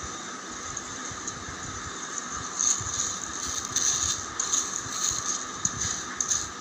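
Irregular crackling and rustling of a foil-lined bag of raw basmati rice being handled, the dry grains shifting inside, over a steady hiss. The crackling starts about two and a half seconds in.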